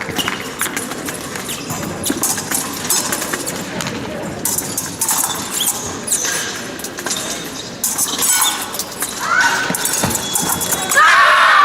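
An épée bout in progress: fencers' feet stamp and slide on the piste, with quick clicks and knocks of blade contact. A loud shout near the end.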